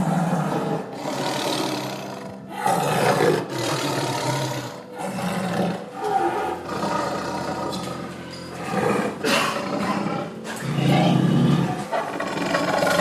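A large animal roaring again and again, in rough calls about a second long, with background music underneath.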